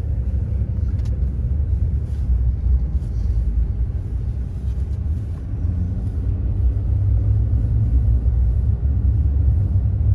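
Vehicle engine and road noise heard from inside the cabin while driving: a steady low drone.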